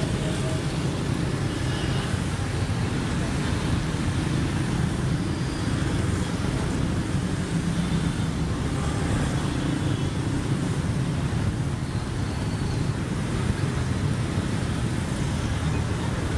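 Steady street traffic noise: a dense, continuous rumble of motor vehicles on a busy city road, with no single event standing out.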